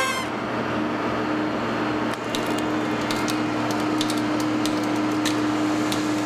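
Heavy vibrating road roller running steadily as its steel drum rolls over a synthetic bowling pin, with scattered sharp cracks and creaks as the pin is crushed under the load. A short ringing hit comes right at the start.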